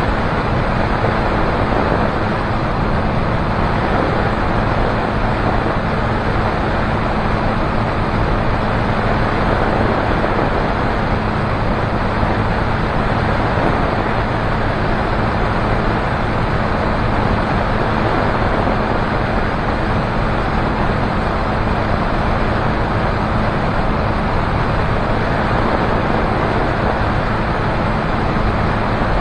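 Single-engine light aircraft in flight: the propeller engine drones steadily with a low, even hum under a loud rush of air over the outside-mounted camera.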